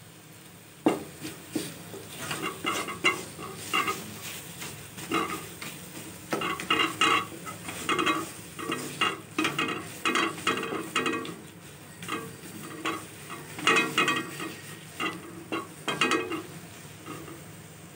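Wooden spatula stirring and scraping mashed cauliflower-leaf saag around an aluminium kadhai, in a long run of uneven scrapes against the pan that stop near the end. A sharp knock of the spatula on the pan about a second in.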